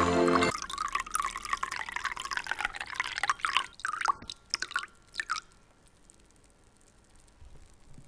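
Milk pouring into a ceramic bowl, thinning to a trickle and a few drips and stopping about five seconds in. Background music cuts off half a second in.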